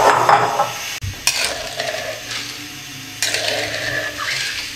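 A steel ladle stirring wet, still-undissolved granulated sugar in a metal karahi, scraping gritty against the pan in two bouts after a clatter at the start. The sugar and water are just beginning to melt into syrup over a low flame.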